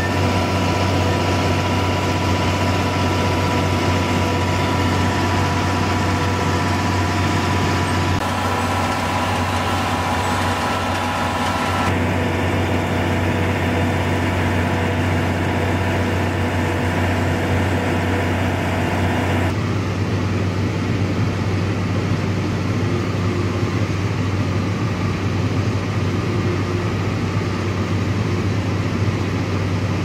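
John Deere farm tractor diesel engines running steadily under load in the field, heard from the operator's seat, with a steady low drone. The engine sound shifts abruptly three times as the footage cuts between tractors.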